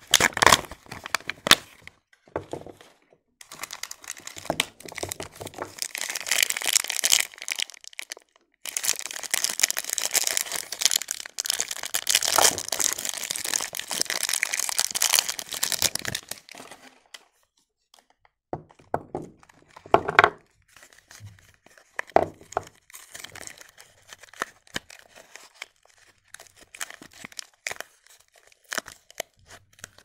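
Clear plastic film and a paper wrapper being torn and crinkled off bars of soap, in long crackly stretches through the first half. After about 16 seconds it gives way to scattered light knocks and clicks as the bare soap bars are handled.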